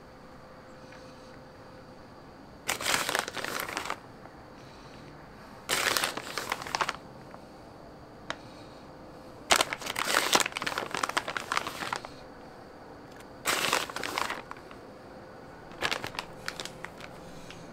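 Plastic bag of shredded cheese crinkling in five short bursts, each about a second long except a longer one in the middle, as a hand reaches in for cheese to scatter.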